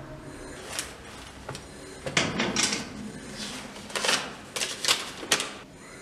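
Irregular sharp clicks and knocks: a cluster about two seconds in and another from about four seconds in, with no steady rhythm.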